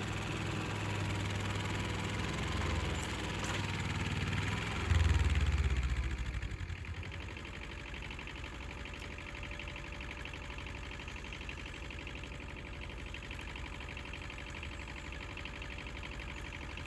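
Mini excavator's diesel engine running, louder around five seconds in, then settling to a steady idle.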